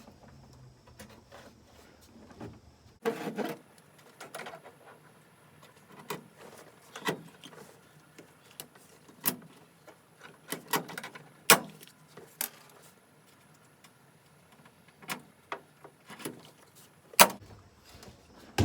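Hand pop-rivet gun setting pop rivets: a series of irregular sharp clicks and snaps as the handles are squeezed and the rivets pull tight.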